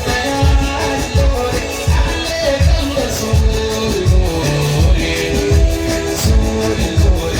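Music with a steady beat about twice a second under a held melody.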